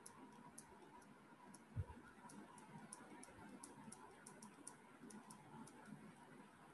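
Very faint, irregular small clicks of a stylus tapping on a tablet screen while writing, with one soft low thump a little under two seconds in.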